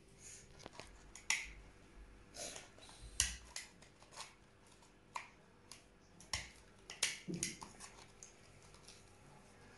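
Irregular light clicks, taps and rustles of glitter paper being handled and pressed into shape as a paper lantern is assembled.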